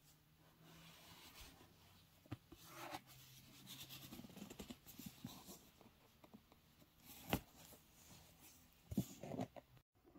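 Quiet handling of a cardboard gift box as its satin ribbon is untied and slid off: soft rustles and scrapes, with a sharp tap about seven seconds in and a few lighter ones near the end.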